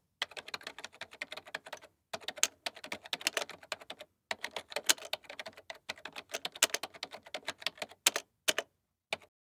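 Fast typing on a keyboard: dense runs of sharp key clicks, with brief pauses about two and four seconds in, thinning to a few separate clicks near the end.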